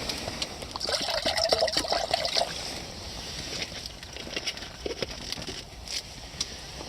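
Water trickling and pouring for about a second and a half, starting about a second in, followed by scattered light taps and drips.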